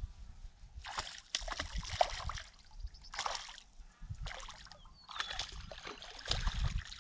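A hooked bass splashing and thrashing at the water's surface in several bursts as it is reeled in toward the bank.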